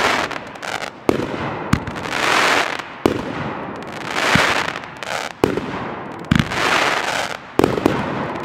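T-Sky Big Burst 500-gram fireworks cake firing: sharp shots every second or so, and between them loud washes of crackling from the crackle-effect stars that swell and fade about every two seconds.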